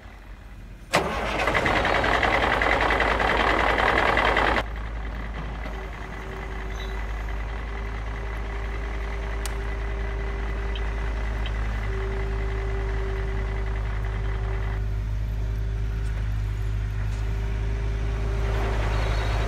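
Recorded truck engine sound: a sudden loud rush of engine noise about a second in, dropping after a few seconds to a steady low idle with a held humming tone.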